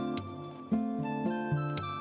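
Background music: gentle plucked acoustic guitar picking out notes.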